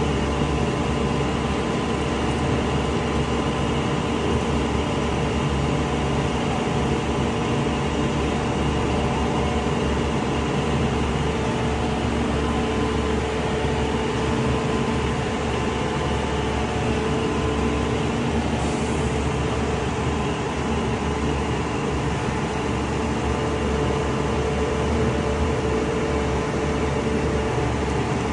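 Horyong PE700 66 m ladder-lift truck running steadily, its diesel engine driving the ladder's hydraulics, a continuous drone with a steady whine that grows stronger about halfway through.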